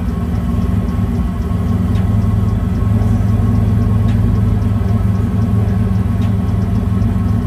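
Steady, loud, low mechanical hum with a faint tick about every two seconds.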